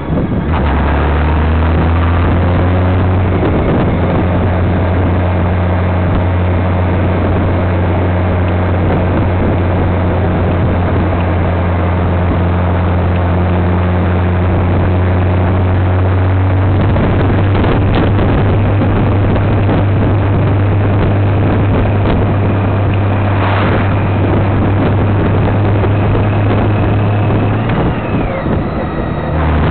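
Honda Gold Wing motorcycle cruising: a steady low engine drone under the rush of wind over an onboard microphone. The drone shifts slightly about halfway through and drops out briefly near the end.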